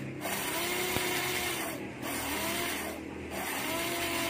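Small electric blade coffee grinder with a stainless-steel body running as it grinds coffee beans. It is worked in pulses: the motor cuts out briefly twice and its hum rises again each time it restarts.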